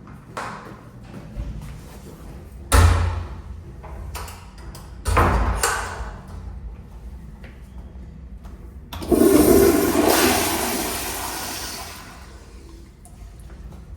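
Two sharp bangs a couple of seconds apart, then an American Standard toilet flushing: a sudden loud rush of water about nine seconds in that fades out over about three seconds.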